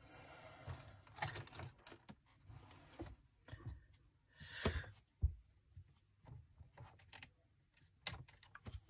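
Faint scattered clicks, rustling and light knocks of wires being handled and connected to the terminals of a plastic electronics circuit kit, with the loudest cluster of clicks about halfway through.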